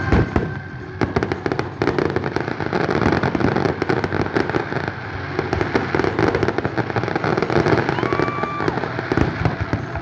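Fireworks going off in a dense barrage of rapid bangs and crackling, with a loud bang right at the start.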